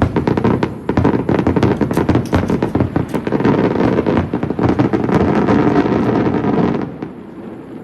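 Fireworks going off in a rapid, dense volley of bangs and crackles that starts abruptly, runs for about seven seconds, then stops and leaves a fading echo.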